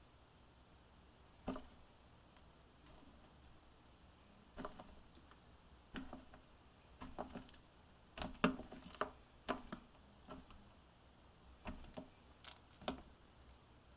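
Faint, irregular clicks and soft taps, thickest about eight to ten seconds in. They come from a ball python's coils shifting and pressing against the plastic wall of its tub as it swallows a rat.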